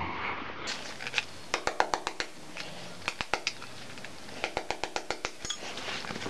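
Hammer tapping on an Allen key set against a scooter wheel bearing, a series of light sharp metallic taps in several quick runs, driving the old bearing out of the wheel.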